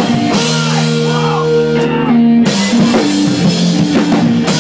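Math-rock/emo band playing live: electric guitars holding ringing chords over a drum kit, with loud cymbal crashes about every two seconds.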